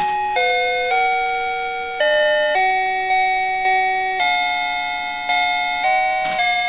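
Electronic chime tones playing a slow tune, one note at a time, each note struck and then fading, a new note every half second to a second.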